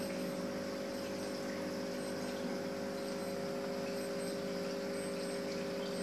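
Water running and trickling in an aquarium with a waterfall feature, over a steady motor hum from the tank's pump.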